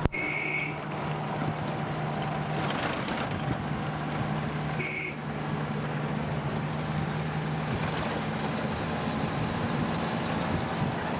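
Vehicle running along a road, heard from inside the cabin: a steady engine hum with road noise. Two short high beeps sound, one at the start and one about five seconds in.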